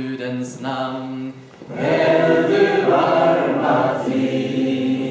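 A group of people singing a song together. The singing grows fuller and louder a little under two seconds in.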